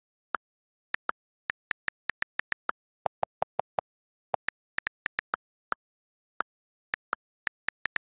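iPhone on-screen keyboard key clicks, about thirty taps at an uneven typing pace with dead silence between them. A run of five deeper clicks comes about three seconds in.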